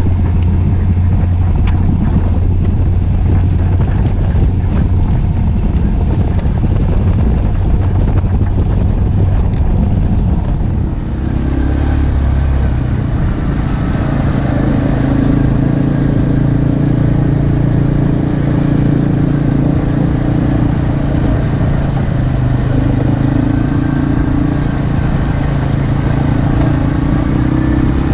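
Arctic Cat Alterra 450 ATV's single-cylinder engine running as it rides along a dirt trail, mixed with the rush of wind and trail noise. About eleven seconds in the sound shifts, and the engine note comes through more clearly, rising and falling slightly with speed.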